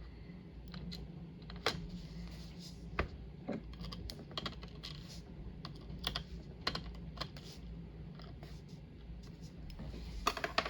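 Small, irregular metal clicks and light taps as the pins and tools of a pin-tumbler lock are handled while it is being taken apart.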